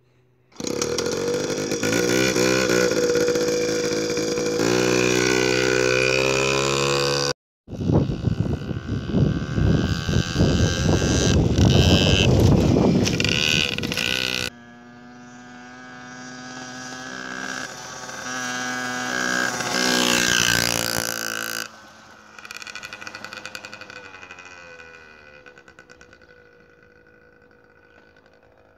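1989 Yamaha PW50's 49cc two-stroke single-cylinder engine revving up and down as the minibike is ridden, in several clips joined by abrupt cuts. Near the end the engine fades as the bike rides off into the distance.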